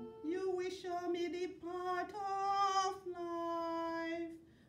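A woman's solo voice cantoring a psalm verse, long held notes on a simple chant melody. The singing stops shortly before the end for a breath.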